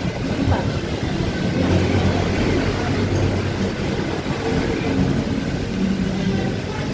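Steady rumble of road traffic passing outside, with a low engine drone that swells about two seconds in and again near the end.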